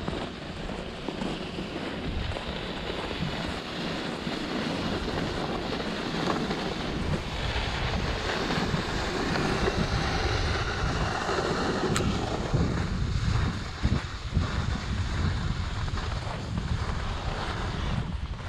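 Wind buffeting the microphone and snowboards scraping over groomed snow as the camera moves down the slope: a steady rushing noise that grows louder in the middle.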